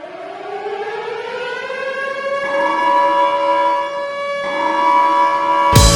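Arena goal horn sounding, the Colorado Avalanche's 1999 horn: a siren-like tone that rises in pitch over about two seconds, then holds steady, dipping briefly about four seconds in. Near the end, music with a heavy drum beat cuts in.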